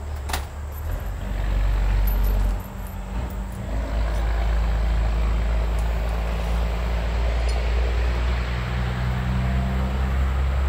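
An engine running steadily with a low hum. It dips briefly about two and a half seconds in, then picks up again.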